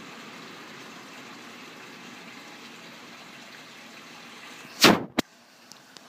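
Steady outdoor background hiss, then about five seconds in a loud, short rub and a sharp click from a phone being handled against its microphone.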